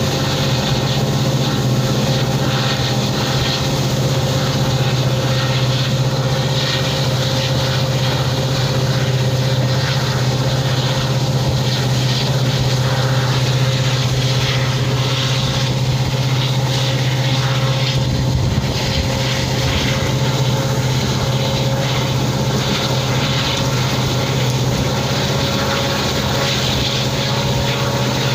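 WDP4D diesel locomotive's EMD 16-cylinder two-stroke engine running steadily at high revs, pulling the train as it picks up speed. The drone is heard from a coach window behind the locomotive, over the rushing noise of the moving train.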